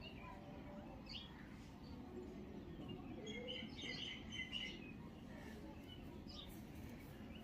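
Faint bird chirps over quiet outdoor background noise, a brief cluster of calls a few seconds in.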